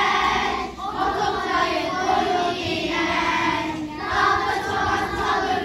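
A children's choir singing together, the phrases broken by brief breaths about a second in and again near four seconds.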